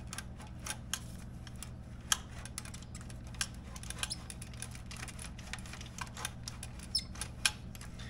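Irregular small metallic clicks and scrapes as an aftermarket exhaust mid-pipe is twisted and worked into the stock muffler's slip joint by a gloved hand, over a steady low hum. The sharpest click comes about two seconds in, with a few more near the end.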